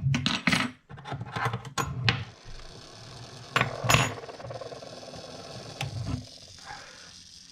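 Small metal clicks and clinks from hands working on a mechanical clock movement and its parts, a dozen or so separate sharp ticks in the first six seconds, then quieter.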